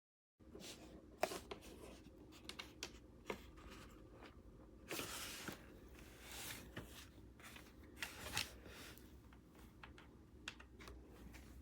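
Handling noise: scattered light clicks, taps and short rustles, with a longer rustle about five seconds in, starting abruptly after digital silence about half a second in.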